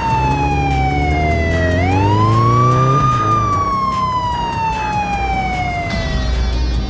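Police car siren wailing slowly, two long falling sweeps with a quick rise between them, over a low vehicle engine drone that climbs in pitch for the first few seconds.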